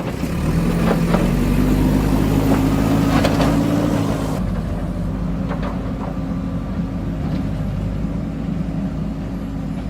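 Vehicle engine running steadily, its pitch rising slightly over the first few seconds, with a few light knocks. The higher hiss drops away abruptly about four seconds in.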